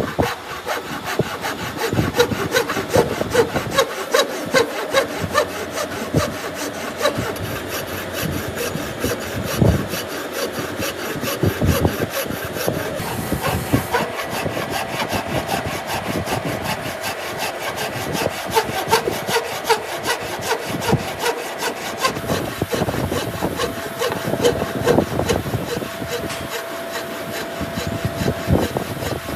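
Wooden-framed bow saw with a narrow blade cutting down through a block of wood by hand, in steady, rapid back-and-forth strokes, each stroke a rasp of teeth in the kerf.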